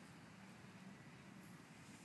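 Near silence: faint steady background hiss with a low hum.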